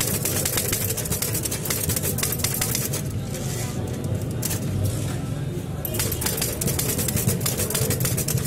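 Old manual Hindi typewriter being typed fast: a rapid clatter of keys and type bars striking. About three seconds in the typing breaks off for a carriage return with the lever, then the clatter starts again.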